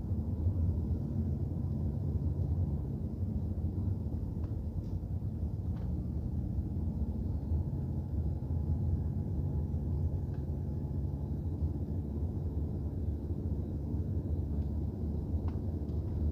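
A car driving, heard through a dash cam: a steady low rumble of engine and tyre noise, with a few faint ticks.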